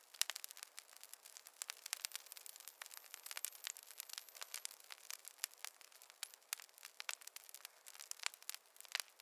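Wood fire crackling in a fireplace: many sharp, irregular pops and snaps over a faint hiss.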